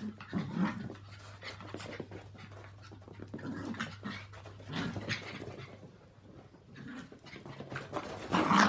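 Yorkshire terriers and a Maltese playing chase, making short irregular dog noises, the loudest near the end.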